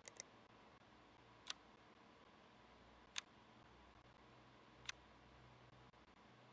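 Sharp clicks over a faint steady hum: a quick double click, then three single clicks spaced evenly about a second and a half apart.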